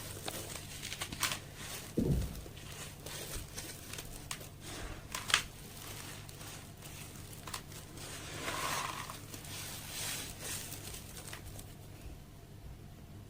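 Sand-cement slabs crumbling, an irregular run of crackles and sharp clicks. There is a low thud about two seconds in and a single sharp crack about five seconds in.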